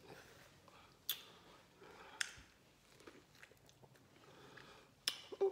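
Close-up mouth sounds of someone biting and sucking on a fresh lemon wedge. There are two sharp, wet slurps about a second apart early on, quieter mouth noise in between, and a cluster of louder smacks near the end.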